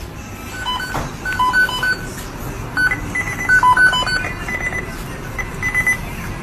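A run of short electronic beeps at several different pitches, following one another like a simple tune, over a steady background hiss.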